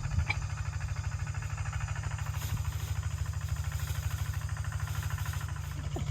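A small engine idling steadily, a low, even chugging.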